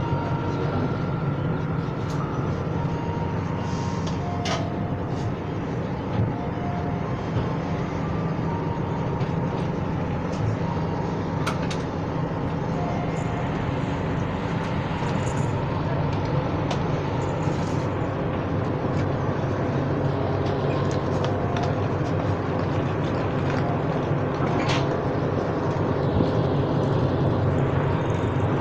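Steady low hum of diesel train engines at a station platform, with scattered clicks and knocks; it grows a little louder near the end as a diesel locomotive draws in on the adjacent track.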